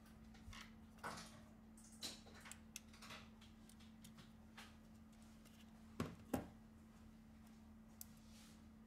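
Faint handling sounds of a spudger and gloved hands on an opened smartphone's frame and motherboard: light scrapes and taps, with two sharper clicks close together about six seconds in, over a steady low hum.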